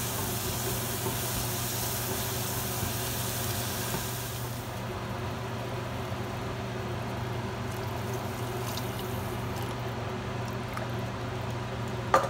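Chopped tomatoes sizzling in hot oil in a saucepan as they are stirred with a spatula. The sizzle dies away about four and a half seconds in, once liquid goes into the pan. A few light scrapes follow, then one sharp knock of the spatula on the pan near the end, over a steady low hum.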